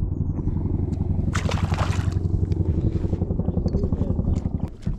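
A motor running steadily with a low, fluttering hum, stopping abruptly just before the end, with a short rushing burst of noise about a second and a half in.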